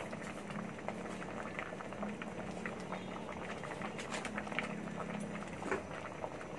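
Sugared tapioca pearls (sago) boiling in a pot, a steady bubbling with many small pops, the mixture thickening as it cooks. A faint steady hum sits underneath.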